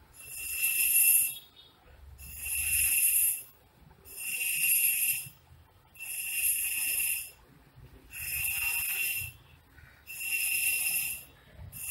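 Rhythmic rasping hiss from the surroundings, six strokes about two seconds apart, each a little over a second long, with a thin whistling tone running through each.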